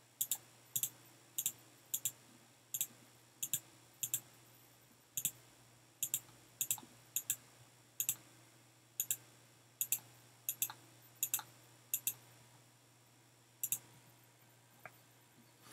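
Computer mouse button clicked over and over in a steady run of sharp clicks, often heard as a press and a release, about one a second. The clicks stop shortly before the end.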